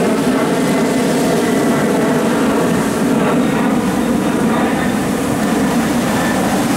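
A steady, loud jet-aircraft drone: a rushing roar with several held tones, keeping an even level throughout.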